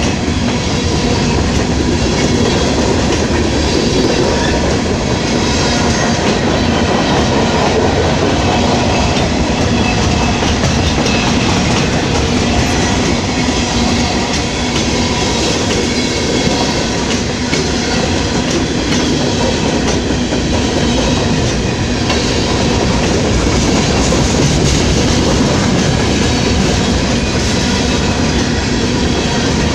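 Norfolk Southern freight train's cars rolling past: a steady rumble with wheels clicking over the rail joints.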